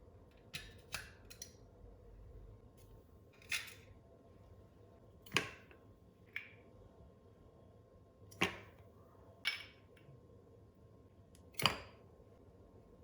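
Irregular sharp clicks and knocks, about nine in all, from things being handled and set down while a coffee drink is made, the loudest near the end.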